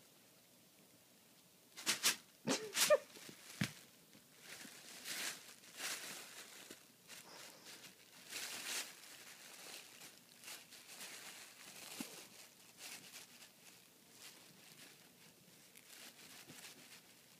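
Thin plastic bag rustling and crinkling in irregular bursts as a Maine Coon cat paws at it and pushes into it. The loudest, sharpest crinkles come about two to four seconds in.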